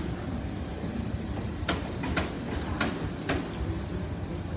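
Southern Class 313 electric train pulling out of the station: a steady low rumble with sharp clicks at a regular pace of about two a second.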